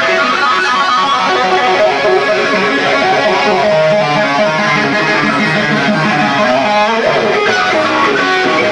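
Distorted electric guitar played live through an amplifier: a fast lead line with bent, sustained notes and a sweeping pitch swoop about seven seconds in.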